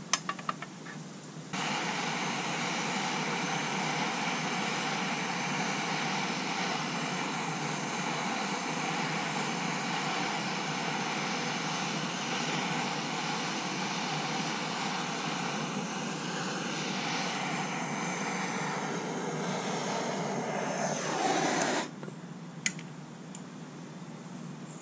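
Handheld MAP-gas brazing torch clicked alight, then burning with a loud, steady hiss while it heats an aluminium bracket for brazing rod. Near the end the hiss shifts and swells, then cuts off abruptly as the torch is shut off.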